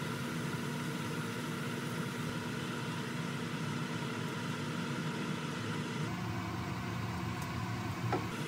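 A steady low mechanical hum with a constant faint tone, like a motor or fan running.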